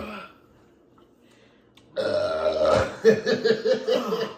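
A person letting out a loud, low burp about halfway through, after chugging a beer. Laughter follows right after it.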